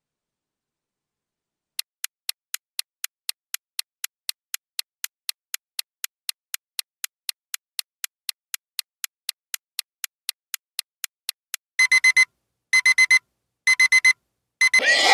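Clock ticking sound effect, about four ticks a second for around ten seconds, counting down the answer time. It ends in an alarm clock ringing in short bursts about a second apart, and a horse whinny starts near the end.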